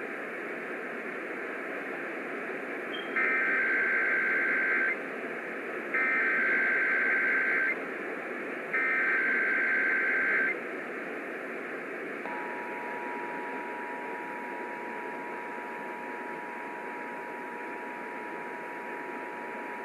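Emergency Alert System header over a steady radio hiss: three identical bursts of SAME digital header tones, each under two seconds, followed about twelve seconds in by the EAS two-tone attention signal (853 and 960 Hz) held steadily. This is the opening of a Required Monthly Test broadcast.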